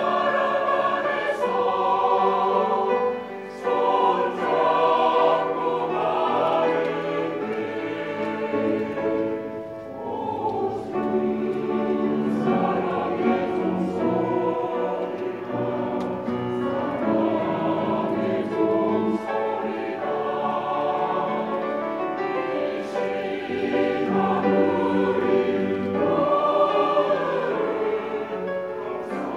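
Mixed church choir of men and women singing a hymn together, the sung phrases broken by short pauses for breath.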